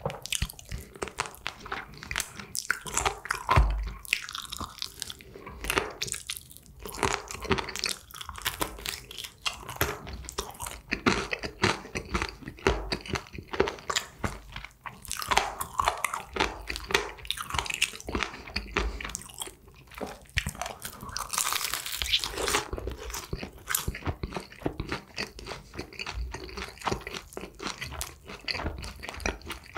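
Crispy honey-glazed fried chicken being bitten and chewed: irregular crunching and crackling bites with wet chewing in between, getting denser and louder a little past two-thirds through.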